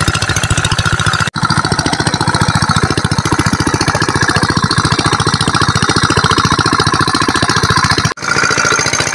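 Small single-cylinder diesel engine running a water pump, a fast steady knocking beat, with water gushing from the pump outlet. The sound breaks off briefly twice, about a second in and near the end.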